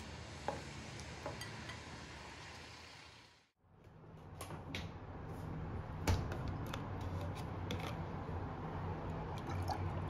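A few light clinks of chopsticks on a ceramic bowl. After a brief silence come scattered clicks of handling, over a low steady hum, and chocolate milk starts to pour from a carton into a ceramic mug near the end.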